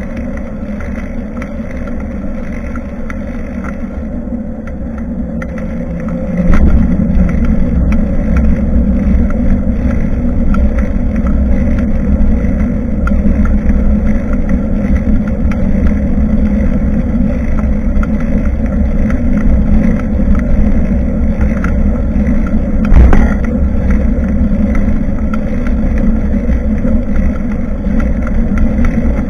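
Steady rumble of riding a bicycle, picked up by a camera fixed to the bike. It gets louder about six seconds in, with a sharp knock at that moment and another about three quarters of the way through, as the bike rolls over a bump.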